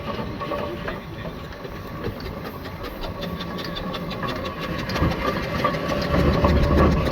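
Steam engine running with a fast, even clatter of strokes over a low rumble.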